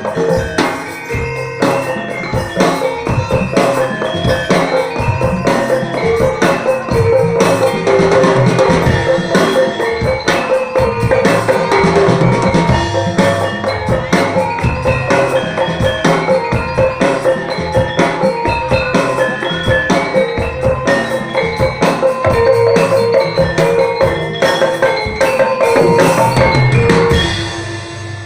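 Jaranan gamelan music: drums with struck metal mallet instruments playing a dense, driving rhythm. It dies down near the end.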